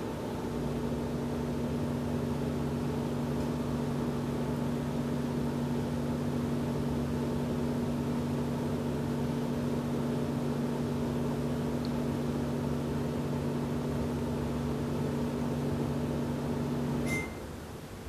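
Microwave oven running on the other side of a wall, giving a steady electrical hum. The hum cuts off near the end with a click and a short beep.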